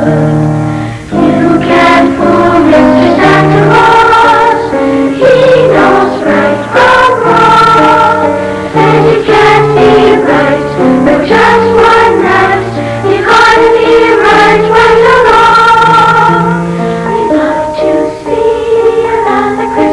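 School choir singing with musical accompaniment.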